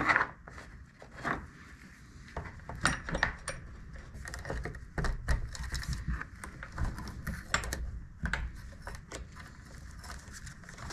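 Loose metal saw chain clinking and rattling as it is worked onto a chainsaw's guide bar, with irregular light clicks and knocks.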